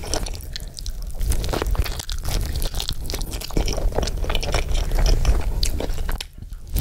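A person chewing and biting into a burger close to an ASMR microphone: dense crunching and mouth clicks, with a brief lull near the end.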